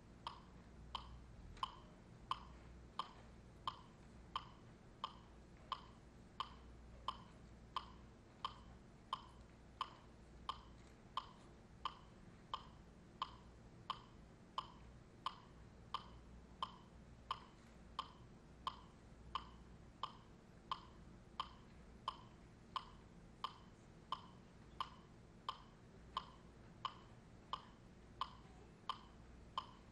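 Sharp, evenly spaced clicks keeping a steady beat, about three every two seconds, over a faint low hum.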